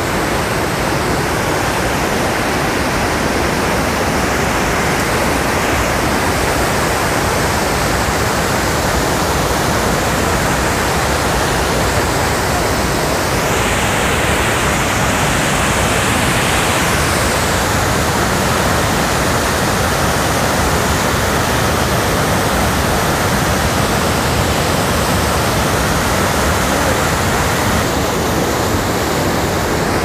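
Waterfall: fast river water rushing and churning over rock ledges at the head of the falls, a loud, steady rush with no let-up.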